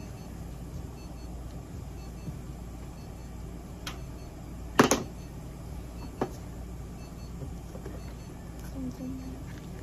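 Steady low hum with a few sharp clicks and knocks from handling a clear plastic cone collar on a cat on a steel exam table; the loudest is a quick double knock about five seconds in.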